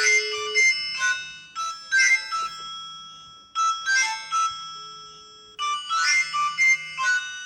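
Mobile phone ringtone playing: a bright, bell-like melody in repeated phrases that each ring out and fade, with a short steady beep near the start and again about five seconds in, and a low buzz pulsing underneath.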